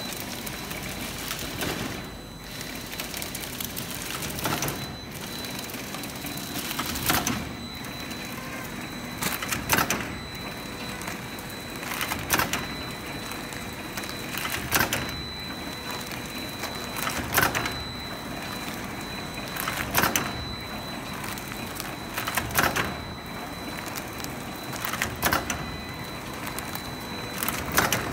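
Biscuit tray packing machine running: a steady mechanical hum with a thin high whine, and a burst of sharp clacking about every two and a half seconds as its mechanism cycles.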